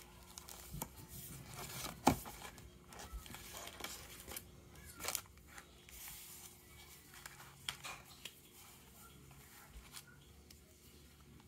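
Paper envelope and a clear plastic bag of stickers being handled: faint rustling and crinkling, with sharp crackles about two and five seconds in.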